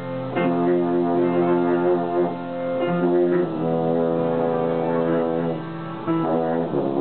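Baritone horn playing a slow melody of long held notes, changing every second or two, over the accompaniment of a player piano.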